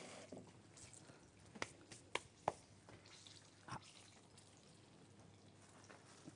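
Near silence broken by about four faint, sharp clicks, a plastic scoop knocking against a cut-glass bowl of dry sugar mix.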